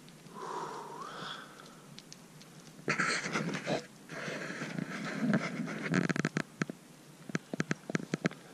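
Rockfall in the Grand Couloir: a loud crash about three seconds in, followed by a run of sharp, irregular clacks and knocks as stones bounce down the gully.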